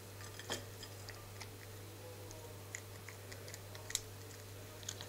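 A Bengal cat chewing bread: scattered short mouth clicks and smacks, about one a second, the sharpest near the end, over a steady low hum.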